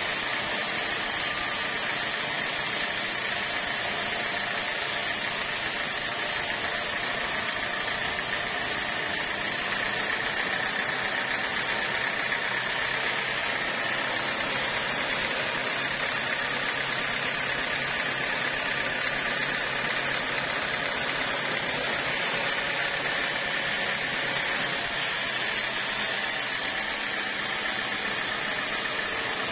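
Band sawmill running under load, its blade cutting lengthwise through a teak beam. The sound is steady and unbroken, with a high tone held over an even hiss.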